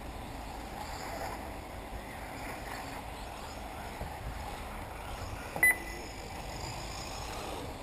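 A short, sharp electronic double beep a little over halfway through, from the race lap-timing system as a buggy crosses the timing line, over steady outdoor background noise.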